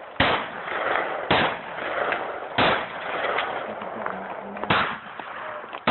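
Handgun shots fired at targets during a defensive-pistol (IDPA) stage: four sharp reports at uneven spacing, the last after a longer pause, each trailing off in echo.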